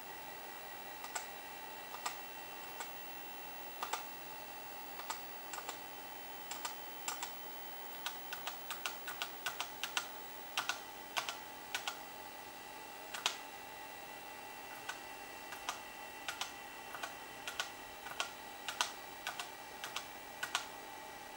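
Computer keyboard keys clicking irregularly, single presses and quick runs of presses, thickest in the middle, over a steady faint electronic whine.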